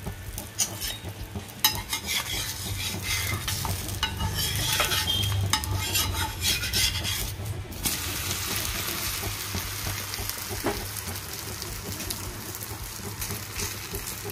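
Butter sizzling on a hot tawa under a naan, with a metal spatula scraping and pressing over it in quick strokes; the scraping stops about eight seconds in and an even sizzle carries on.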